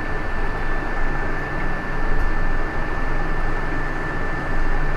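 Steady hiss, like a fan or air blower running, with a thin steady high whistle through it.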